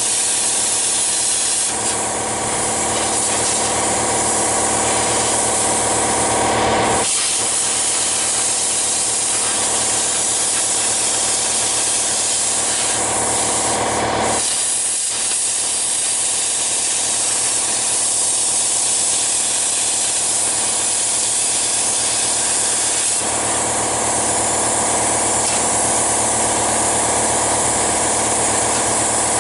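Handheld plasma cutter cutting 14-gauge sheet steel: a steady, loud hissing rush of the cutting arc and its air flow. The tone shifts abruptly about 7 and 14 seconds in.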